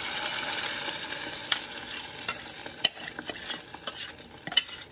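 Blended tomato, onion and garlic purée sizzling as it pours into hot olive oil in a stainless steel saucepan, the sizzle fading after about two seconds. A spoon scrapes the bowl out, with a few sharp clicks against the rim.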